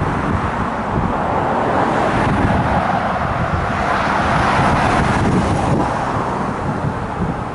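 Steady rumble of a distant locomotive-hauled passenger train running along the line, under the buffeting of wind on the microphone.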